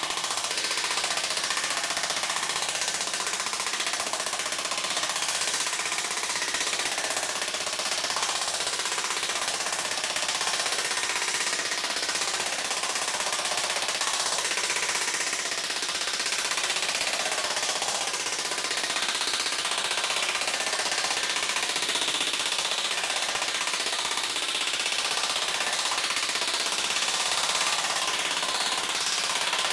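Pneumatic air hammer with a round forming head rapidly pounding sheet metal over a sandbag, flow forming it, running without a break.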